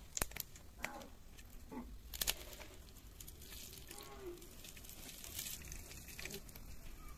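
Mustard and cumin seeds frying in oil in a miniature steel kadai: a faint sizzle with scattered sharp pops and clicks, the loudest in the first couple of seconds. Then chopped green chilli goes into the pan and a tiny spoon stirs it, with soft scraping and clicks against the metal.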